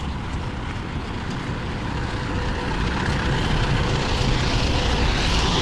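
A vehicle's engine running close by, slowly growing louder, with wind rumbling on the microphone.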